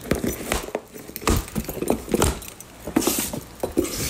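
A cardboard shipping box being opened with a key: irregular scraping and clicking as the key cuts the packing tape, a rustle about three seconds in as the flaps come apart, and the jingle of the key ring.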